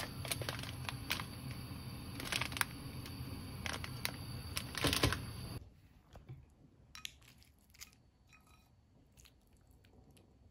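Cooking on a gas stove: a steady rush with a low rumble and scattered crackles and clicks. A little past halfway it stops suddenly, leaving only faint clicks and taps.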